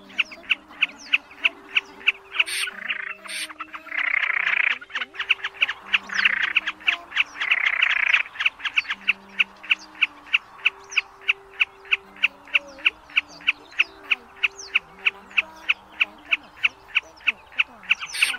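Snipe calls: a fast, even run of sharp ticking notes, about four a second, with harsh rasping calls breaking in several times in the first half.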